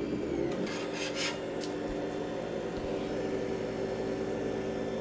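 Tevo Tornado 3D printer running with a steady electric hum, with a few short scraping or rubbing noises in the first second and a half.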